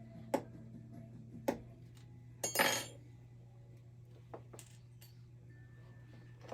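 Small metal jewellery tools and wire clicking and clinking on a workbench: two sharp clicks, then a louder rattling metal clatter about two and a half seconds in, and a few faint ticks after.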